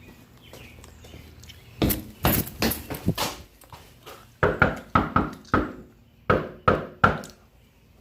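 Knocking on a door: a first round of about five knocks, then after a short pause a second, louder round of about eight knocks.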